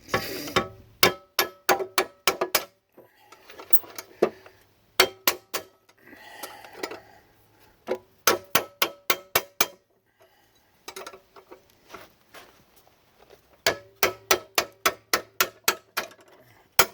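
Wooden mallet striking a wrench to break the mower blade's bolt loose, in quick runs of sharp blows, about four to five a second, each with a short metallic ring.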